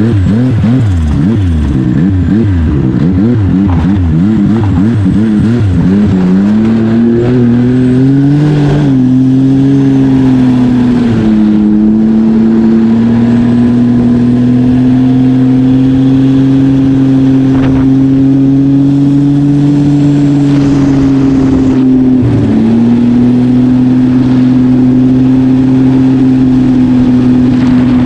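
Turbocharged Yamaha Sidewinder snowmobile engine, a 998 cc three-cylinder four-stroke, revving unevenly at low speed for the first few seconds. It then accelerates with a rising pitch and settles into a steady high cruise, with one brief lift off the throttle about four-fifths of the way through.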